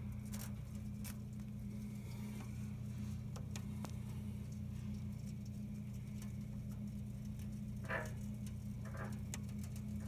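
A moth's wings fluttering in two short rustling bursts, about eight and nine seconds in, over a steady low hum and scattered faint taps and clicks.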